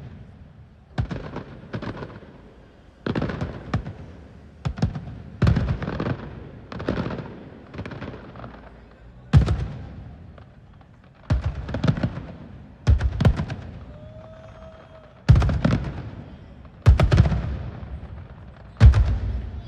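Aerial fireworks bursting in a steady barrage: a deep boom every one to two seconds, each fading away over about a second before the next.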